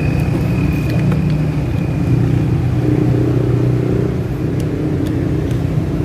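An engine running steadily, a low drone, with a faint high whine that fades out about two seconds in and a few light clicks.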